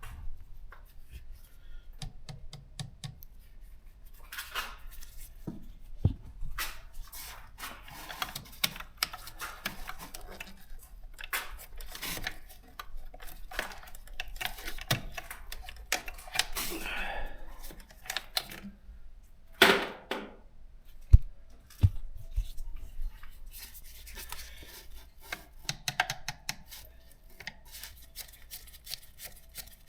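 Scattered clicks, taps and rustling of hands and tools working on a scooter's battery compartment, with a couple of sharper knocks about twenty seconds in.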